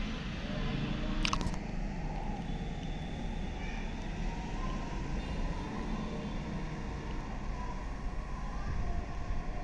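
Low, steady background rumble with a single sharp click about a second in.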